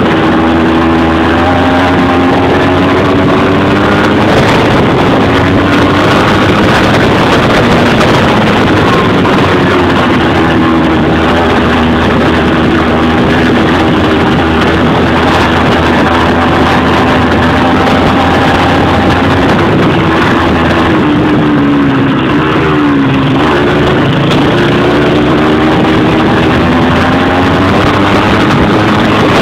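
Dirt bike engine running hard under load on a long uphill climb, its pitch wavering with the throttle. About two-thirds of the way through it drops briefly, then rises again.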